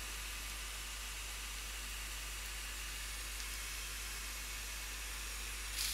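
Steady faint hiss of room tone with a low hum beneath it, unchanging throughout; the hands placing the acrylic make no distinct sound.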